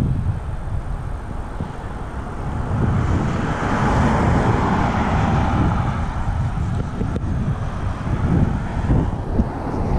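Wind buffeting the microphone with a gusty low rumble, while a passing vehicle swells up and fades away through the middle.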